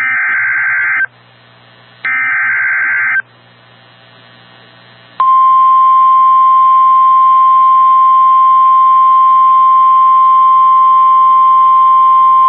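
NOAA Weather Radio emergency alert: two harsh, warbling digital SAME header bursts about a second long each, at the start and about two seconds in, with faint radio hiss between. From about five seconds in comes the steady single-pitch 1050 Hz warning alarm tone, which signals that a warning is about to be broadcast.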